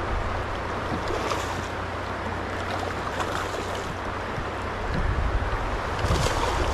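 Steady rushing of a shallow, rocky stream, with a low rumble of wind on the microphone that swells about five seconds in.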